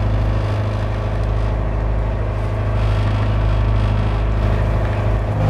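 Boat engine running steadily while under way, a low, even drone.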